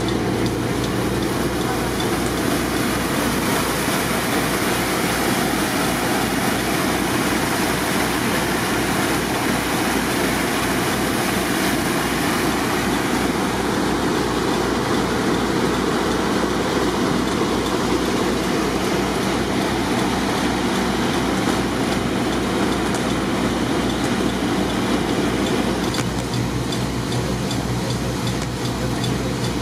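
Flood-control pumps running steadily with a low, even throb, while water gushes out of a large discharge hose into the lake.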